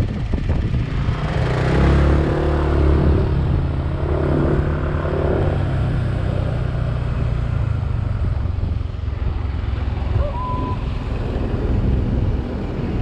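A vehicle driving up a paved mountain road: the engine runs steadily under load, with wind rushing over the microphone. The engine note rises and falls a couple of seconds in.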